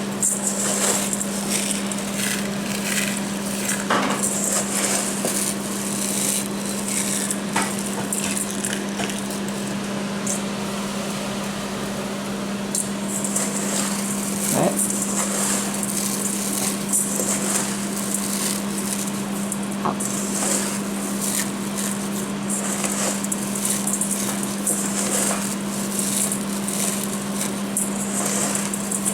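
Kitchen cooking sounds: a steady low hum under stretches of high hiss, with occasional sharp knocks and clinks of pans and utensils, a few seconds apart.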